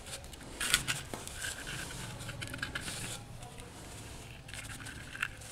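Cord scraping and rustling against a dried calabash gourd as it is threaded through the gourd for a berimbau resonator, with dry scratching in several short spells.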